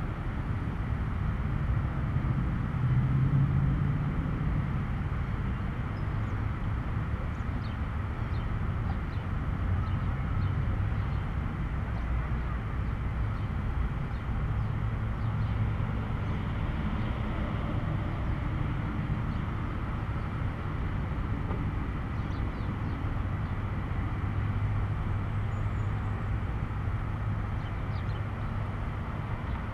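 Steady low rumble of road traffic, swelling briefly about three seconds in as a vehicle passes.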